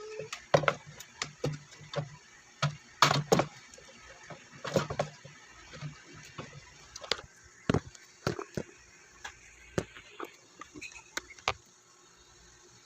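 Irregular clicks and knocks of plastic parts being handled and fitted together, as a ring light and its stand are set up. A few sharper knocks come about three and five seconds in, and the clicking stops shortly before the end.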